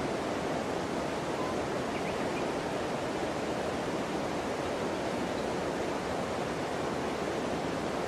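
Steady rushing of a shallow river flowing nearby, an even noise that stays at one level throughout.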